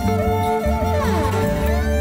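Mongolian folk music: a bowed string melody with vibrato over a steady low pulse, with several lines sliding down in pitch about a second in.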